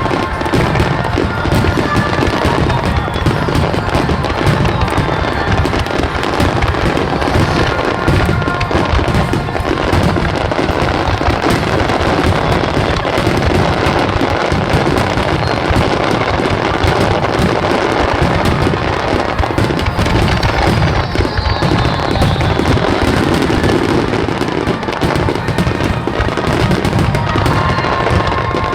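Fireworks finale barrage: shells bursting in rapid, unbroken succession, booms and crackles piling over one another with no pause.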